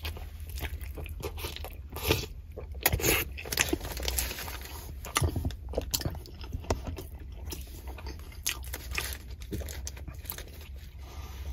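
A person biting into and chewing a soft-bun roast beef sandwich topped with gravy and cheese curds, close to the microphone: irregular chewing and mouth smacks.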